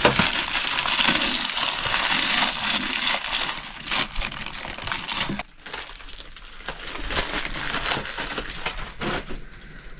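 Dry crunching and crackling, dense and loud for about five and a half seconds, then dropping suddenly to quieter, scattered crackles.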